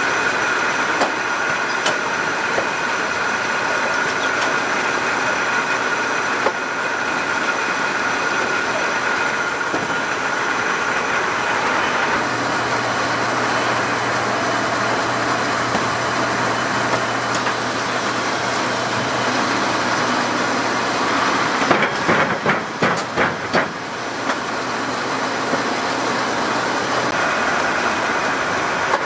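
Top Tier TT-L20 low-level palletizer running, its roller conveyors and drive motors giving a steady mechanical hum with a steady high tone. A second, lower motor hum starts about twelve seconds in and runs until near the end, and a quick run of sharp knocks comes a little past two-thirds of the way through as the case layer is handled.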